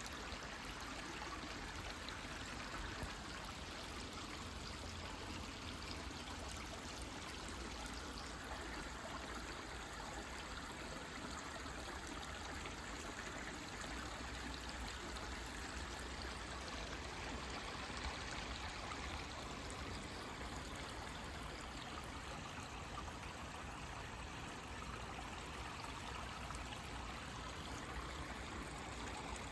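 Forest stream running steadily, water trickling and rushing in an even wash.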